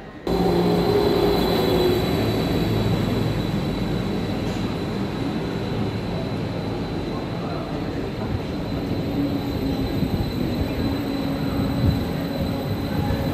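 SBB regional electric train running alongside the platform: a steady rumble with whining tones from its motors and wheels. It starts abruptly.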